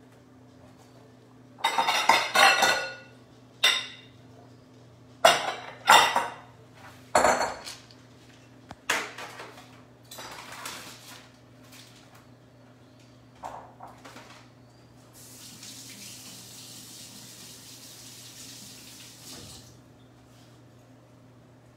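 Kitchen prep clatter: glass bowls, dishes and utensils are knocked together and set down on a counter in a run of loud, sharp clatters over the first ten seconds or so. Then a tap runs steadily for about four seconds.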